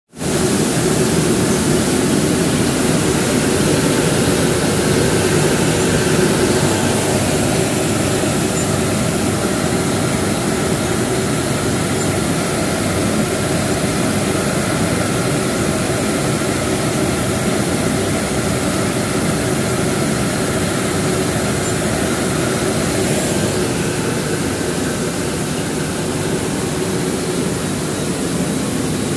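Rice milling machine running steadily with grain pouring through it and out of its chute, an even loud hum and hiss. This is the first milling pass of steamed 1509 basmati rice.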